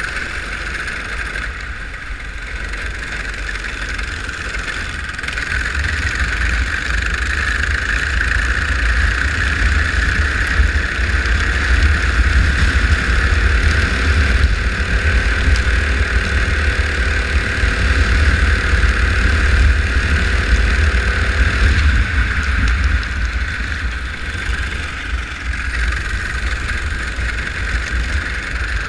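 Go-kart engine running steadily on track, with a heavy low rumble underneath. It grows louder through the middle and eases off slightly near the end.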